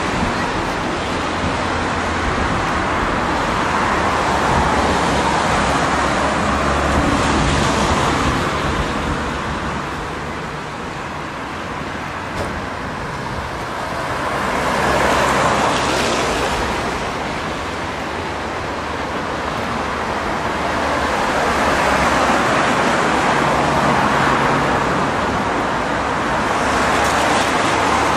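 Road traffic on wet pavement: a steady hiss of tyres and engines that swells and fades several times as cars pass.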